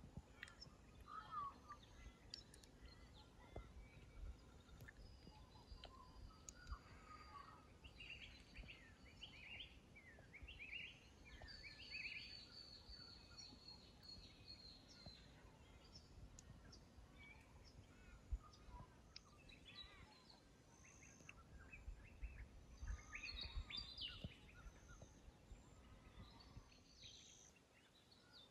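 Faint birdsong: several birds chirping and calling, with a longer run of high notes about twelve seconds in, over a soft low rumble.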